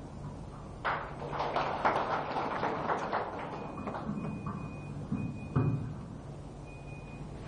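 A short round of hand clapping from the standing audience, lasting about two seconds. A heavier thud comes near the end, and a faint high steady whine comes and goes.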